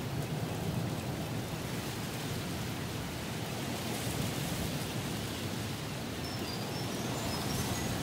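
Strong wind rushing steadily through the forest and vegetation, in mild swells. Near the end a bird gives two quick rising runs of short, high whistled notes.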